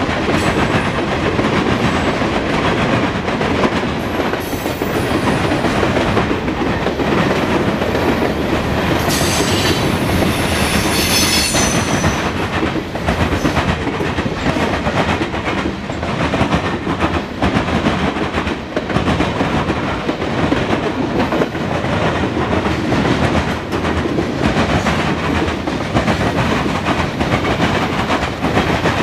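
Freight cars of a mixed freight train (covered hoppers and tank cars) rolling past close by: a steady rumble of steel wheels on rail with rhythmic clickety-clack over the rail joints. A brief high-pitched wheel squeal rises over it about nine seconds in and fades by twelve seconds.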